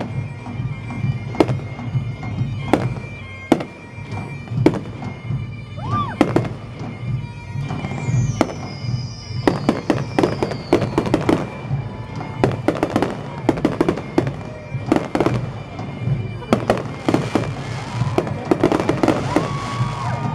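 Aerial fireworks display: shells bursting in rapid, irregular succession, with a high whistle falling in pitch about eight seconds in. Music plays steadily underneath.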